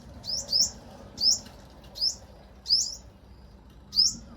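A bird calling: about six short, shrill, high-pitched notes, each a quick rising chirp, coming at uneven intervals.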